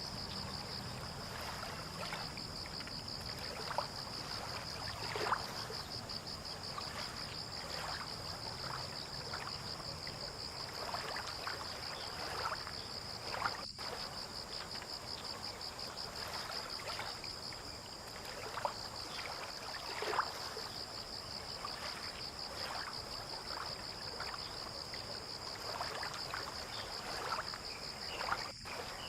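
Water lapping and trickling at the harbour edge in small irregular splashes, over a continuous high-pitched insect trill.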